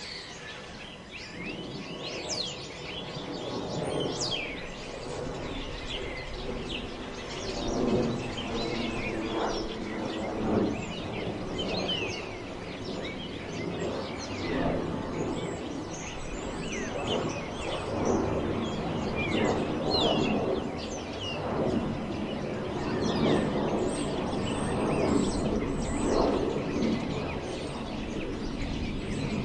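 Wind blowing through forest trees, the rush swelling and easing every few seconds, with small birds chirping throughout.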